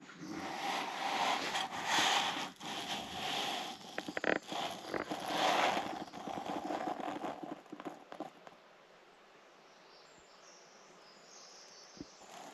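Fabric rustling and handling noise close to the microphone, uneven and loud for about eight seconds, then dropping to quiet woodland air with a few faint high chirps.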